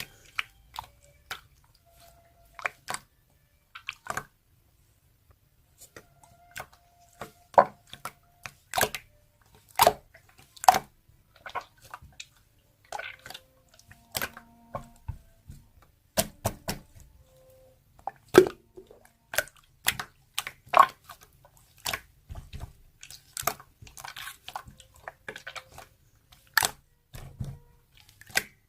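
Sharp, irregular close-up clicks and crunches, sparse at first and then several a second from about six seconds in.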